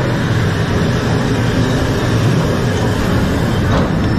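Ore-car train of a dark-ride mine train rolling along its track, a steady rumble of wheels on rails.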